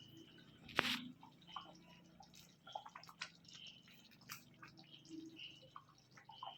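Thick tomato gravy simmering in a pan on low heat, its bubbles popping in scattered small irregular clicks. One louder sharp knock comes a little under a second in.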